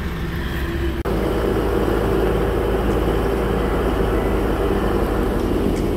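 Holden Colorado ute driving along a dirt track: steady engine and tyre noise heard from outside the vehicle, louder from about a second in.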